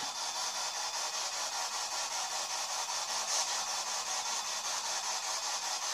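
Steady high hiss with a fast, even flutter, and no distinct event.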